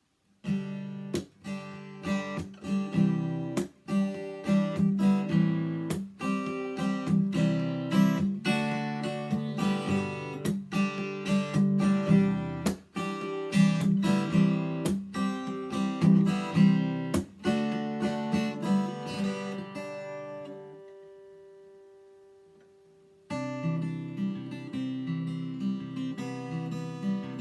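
Seagull Maritime SWS steel-string acoustic guitar with a solid cedar top being strummed in chords. The chords ring out and fade about 20 seconds in, then the strumming starts again suddenly a couple of seconds later.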